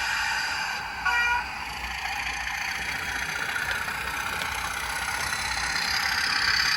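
Traintech sound capsule playing a recorded Class 31 diesel engine through a small speaker as the OO gauge model pulls away. A short pitched tone comes about a second in, and then the engine sound slowly builds as it catches up with the motion.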